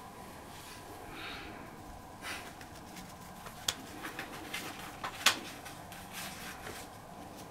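A bundle of old paper cards tied with string being handled: soft paper rustles with a few sharp clicks, the loudest about five seconds in.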